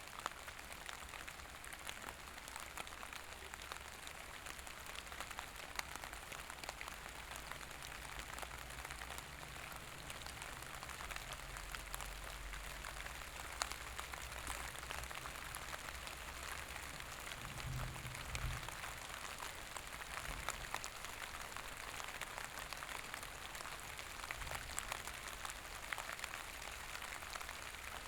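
Steady rain falling, an even hiss full of fine pattering drops, with a faint low rumble a little past halfway.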